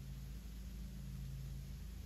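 Lawn mower engine running steadily, heard as a low, even hum.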